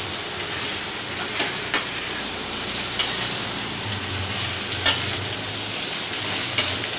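Food frying in oil with a steady sizzle while a metal ladle stirs mashed potato in a steel kadai, clinking sharply against the pan four times.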